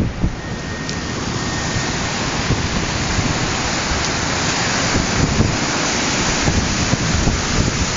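Storm wind and rain: a steady, even rushing hiss that grows slowly louder, with some low wind buffeting on the microphone.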